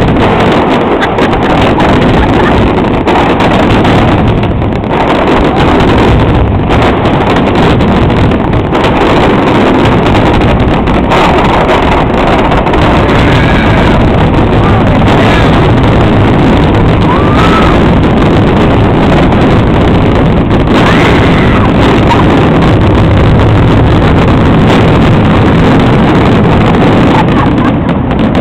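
Fireworks finale barrage: shell bursts come so fast that they merge into one loud, continuous rumble that overloads the microphone.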